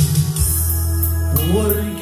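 Live church worship music: a cymbal crash at the start, then a long held low bass chord, and a man's voice sliding up into a sung note near the end.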